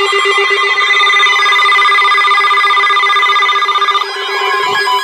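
Several emergency alert tones sounding together for a tornado warning. A steady high alert tone cuts off about four seconds in, over a pulsing lower tone and wavering, siren-like tones.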